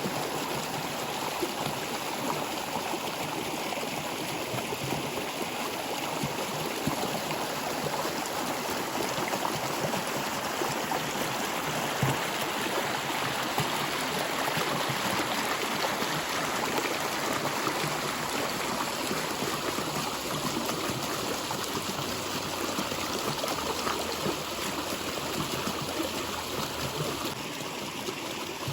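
A stream of water flowing steadily, with trickling and splashing in the current.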